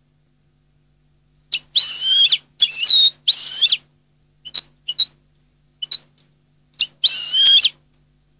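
European goldfinch singing: after a short pause, drawn-out warbling phrases that waver in pitch, with short single call notes between them, over a faint steady low hum.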